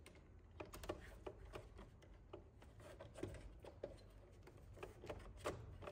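Faint, scattered small clicks and scrapes of a screwdriver and wire being worked into the terminal of an AFCI circuit breaker in a breaker panel, with a slightly louder click about five and a half seconds in.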